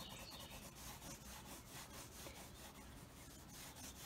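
Faint, quick scratching of a white pencil shading on black paper in rapid up-and-down strokes.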